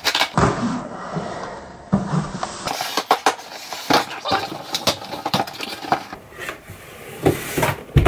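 Cardboard shipping box being torn open by hand: tearing and rustling cardboard with a run of sharp crackles and knocks, then the cardboard shoebox inside being pulled out and set down.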